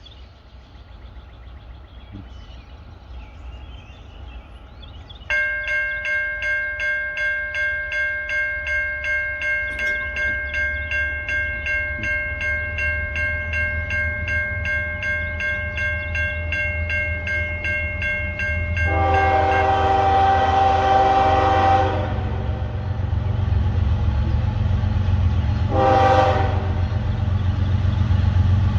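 Freight train's diesel locomotives approaching with a low engine rumble. A bell starts ringing steadily about five seconds in. The lead locomotive's horn then sounds one long blast near the middle and two short blasts toward the end.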